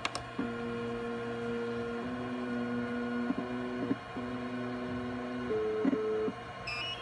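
Portable fluorescence progesterone analyzer scanning a test strip: its drive motor whines in a few steady pitches that shift in steps, with a short break about four seconds in. The whine stops shortly before a brief high beep at the end.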